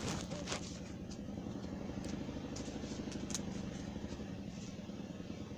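An engine running steadily at idle, a low even hum with a few faint clicks over it.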